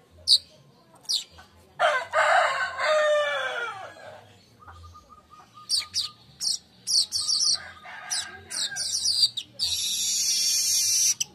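Manyar (weaver bird) song: a run of short, very high chirps ending in a long buzzing hiss near the end. A rooster crows about two seconds in, a call that falls in pitch at its close.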